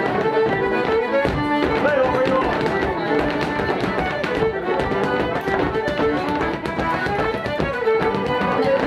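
Fiddle playing a lively traditional tune for a rapper sword dance, with many sharp taps and clicks from the dancers throughout.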